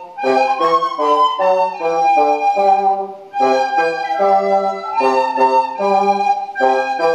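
Children's recorders playing a melody in unison, note by note, with a bassoon sounding lower notes beneath them; the playing dips briefly a little over three seconds in.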